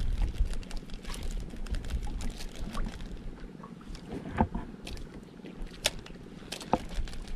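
Water lapping and slapping against the hull of a small outrigger boat over a low wind rumble, with scattered light clicks and a few sharper knocks about halfway through and near the end.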